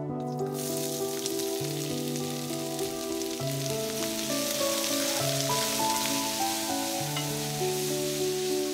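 Food sizzling in a hot frying pan. The sizzle starts about half a second in and continues steadily, over background music.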